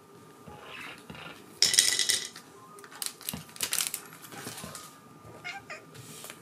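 A domestic cat meows once, loudly, about one and a half seconds in. After it come short crinkling rustles as a hand shakes a shiny plastic object in front of the cat.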